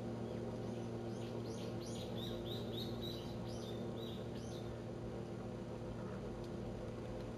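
A small songbird singing a quick run of about ten high chirps, roughly three a second, lasting about three seconds, over a steady low hum.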